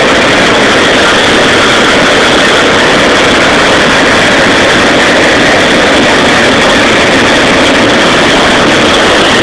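Hot-air balloon's propane burner firing in one long continuous blast: a loud, steady roar.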